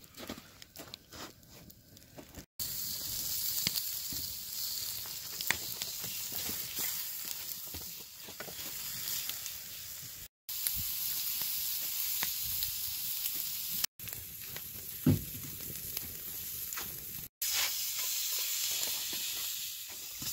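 Thin-cut beef short ribs sizzling in a frying pan over a wood campfire, with scattered pops. The sizzle starts about two and a half seconds in and breaks off briefly three times.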